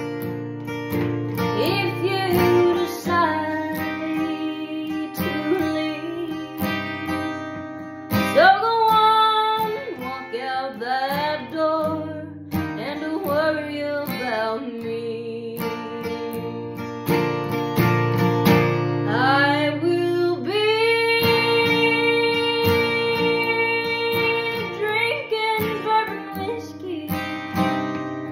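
Acoustic guitar strummed, with a woman singing along in a country song.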